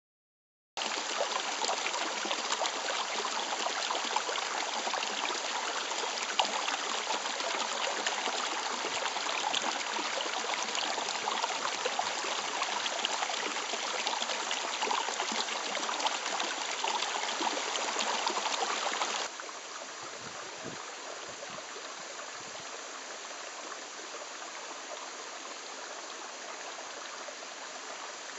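Fresh water bubbling and gushing over mossy stones in a steady rush. It starts about a second in, and about two-thirds of the way through drops suddenly to the softer, steady purl of a shallow stream.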